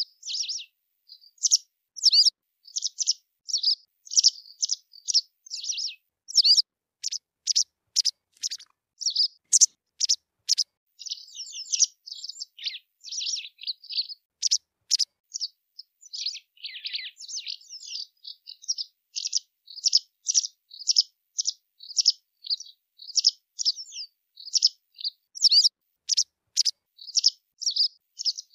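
White wagtail calling: a long string of short, high chirps about two a second, broken by a few quicker twittering runs, with hardly a pause.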